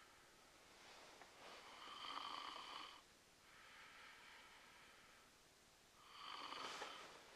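A person snoring: three slow, faint rasping breaths about two seconds apart, the middle one softer.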